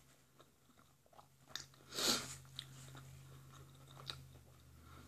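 Quiet eating sounds: soft chewing with a few wet mouth smacks and clicks as fingers are licked, the loudest about two seconds in.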